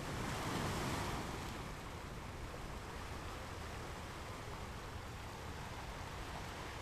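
Ocean waves on a shore: a wave swells and breaks in the first second or so, then fades into a steady wash of surf.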